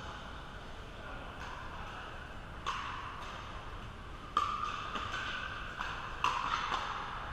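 Pickleball paddles striking a plastic pickleball during a doubles rally: a run of sharp pops, the loudest about three, four and a half and six seconds in, each ringing briefly in a large hall.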